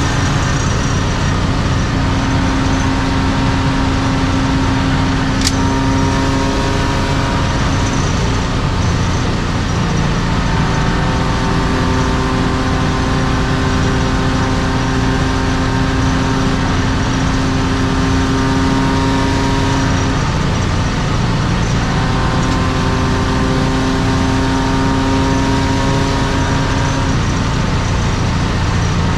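BMW E36 325i's M50B25 straight-six, fitted with Schmiedmann headers and a TA Technix exhaust, droning at nearly steady revs while cruising at speed, heard from inside the cabin. A brief click sounds about five and a half seconds in.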